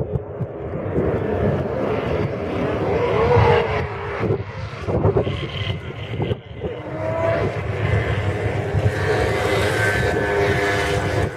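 Drift cars' engines revving hard, their pitch rising and falling again and again as the cars slide.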